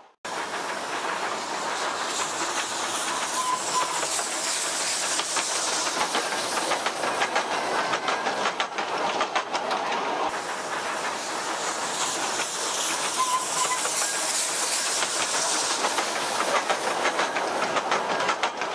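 Small 18-inch gauge steam locomotive running with a steady hiss of steam, together with the clicking of its wheels over the rails.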